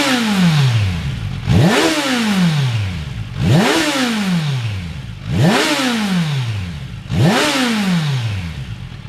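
Kawasaki Versys 1000's inline-four engine, breathing through a 10-inch Holeshot Comp 2 Bad Boy slip-on muffler, blipped to about 8,000 rpm five times about every two seconds. Each rev snaps up quickly and then falls back toward idle.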